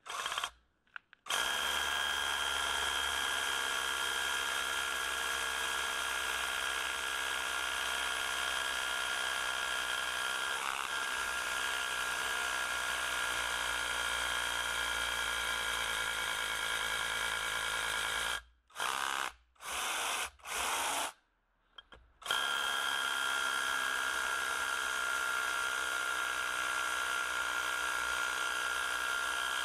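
Cordless hammer drill, a Panasonic EZ6813 rebuilt with a brushless motor, boring into a concrete slab with a steady high whine. After a quick trigger blip at the start it runs continuously, stops and restarts several times about two-thirds through, then runs steadily again.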